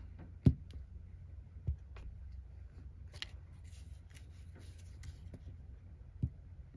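Rubber stamps and craft supplies being handled on a desk: three short knocks as things are set down or pressed, with light rustling and clicking in between.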